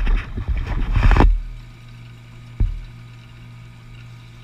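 Gasoline poured from a plastic gas can with a spout into a Honda TRX90 ATV's fuel tank: about a second of clattering and gurgling as the can is tipped and handled at the filler neck, then a single knock about two and a half seconds in.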